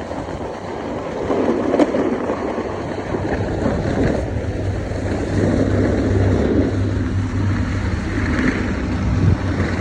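Wind rushing over a phone microphone and a snowboard scraping across snow while riding down a run. A steady low hum comes in about halfway through.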